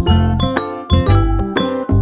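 Background music: pitched instrument notes over a steady bass beat, about two beats a second.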